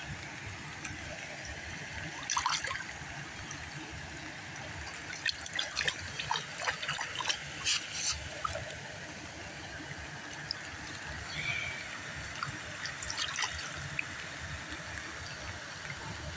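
Shallow water splashing and trickling as a bass is released into it and swims off, with a splash about two seconds in and a run of small splashes between about five and eight seconds.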